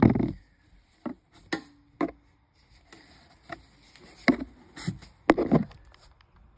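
A series of irregular knocks and clicks, about eight in six seconds, the loudest right at the start. They come from hands working an engine's oil dipstick, wiping it and sliding it back into its tube for another level reading.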